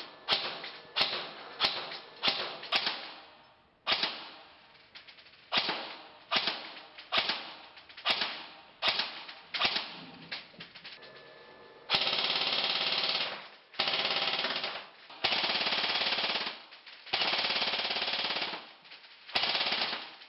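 G&G SIG 553 MAX airsoft electric rifle firing. Through the first half it fires single semi-automatic shots at about one and a half a second. About halfway through it switches to full-automatic bursts of a second or so each, half a dozen in all.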